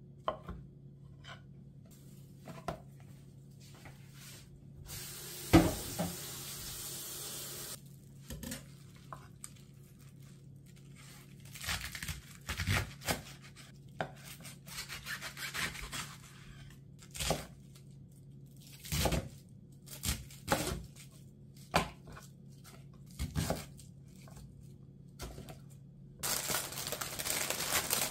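Kitchen knife cutting mushrooms and then a half head of napa cabbage on a wooden cutting board: a run of knocks and crunchy slicing strokes, the loudest a sharp knock about five seconds in, followed by a few seconds of rustling. Near the end a plastic bag crinkles as bok choy is pulled out of it.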